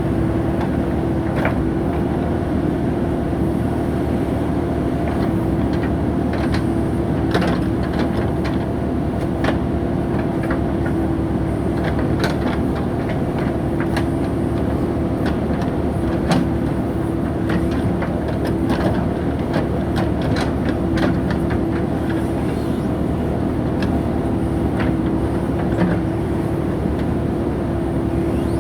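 JCB 3DX backhoe loader's diesel engine running steadily under working load, with scattered sharp knocks and clanks from the digging.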